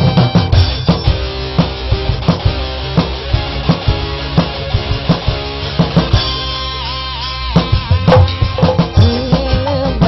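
Live dangdut band music with a steady drum and bass beat. About six seconds in the drums drop back for a moment under a held, wavering melody line, then the beat returns.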